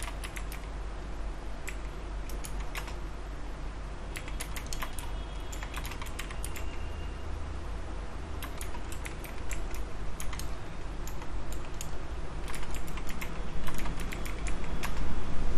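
Typing on a computer keyboard: bursts of key clicks with a sparse stretch of a few seconds in the middle and a busier run near the end. A steady low hum lies underneath.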